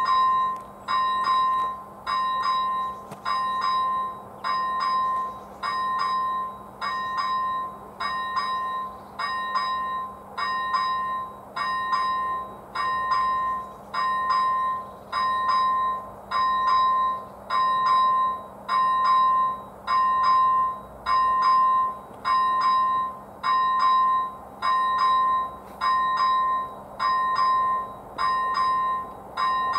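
Electronic level-crossing warning bell (AŽD ZV-01) on a Czech AŽD 71 crossing signal, chiming steadily about once a second, each chime a quick double ding. It is the crossing's active warning that a train is approaching. A faint steady hum runs underneath.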